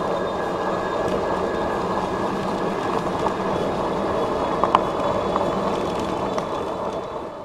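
Himiway Zebra electric bike accelerating on a dirt trail: a steady hum from the rear hub motor over the rumble of fat tyres rolling on dirt, with a few small clicks. It fades out near the end.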